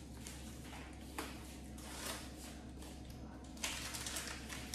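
Quiet kitchen room tone with a few faint taps and rustles of things being handled.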